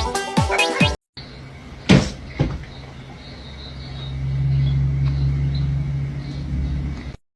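About a second of electronic music with a steady beat. After a sudden cut, a low steady rumble follows that grows louder about halfway through, with two knocks soon after the cut and faint high chirps above it.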